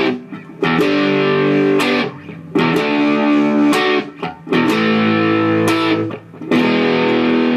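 Electric guitar in open tuning playing a simple blues riff: strummed chords struck about every two seconds, each ringing, then damped short before the next.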